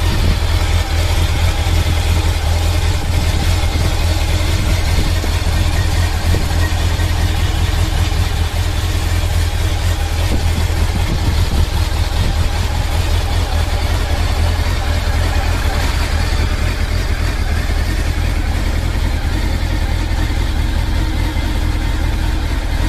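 Honda CB1000SF's inline-four engine idling steadily, running on freshly changed oil.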